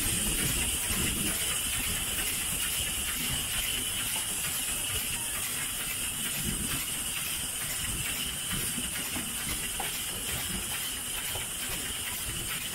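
Steady steam hiss from the 1906 StEG-built 0-8-0 steam locomotive 414.096, heard close up from the front of the moving engine, over an uneven low rumble of the running locomotive.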